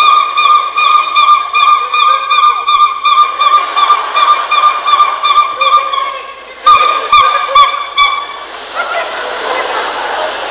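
A small wind pipe held on one high, reedy note that wobbles about four times a second, breaking off about six seconds in. It is followed by three short, loud honks of the same note and then a stretch of hissing noise.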